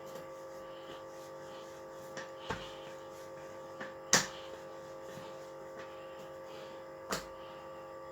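Steady electrical hum in a kitchen, with three sharp knocks from handling pastry and utensils on the counter; the loudest comes about four seconds in.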